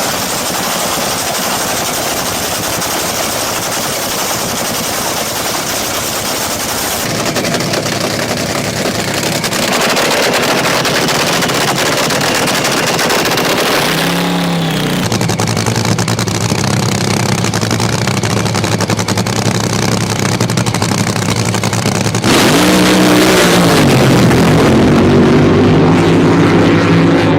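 Racing boat's engine running hard, with a haze of wind and water noise; the engine pitch swings down and back up about halfway through and again near the end.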